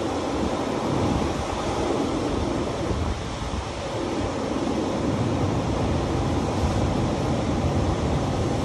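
Ocean surf breaking against a rocky shore, a steady rush of noise mixed with wind buffeting the microphone.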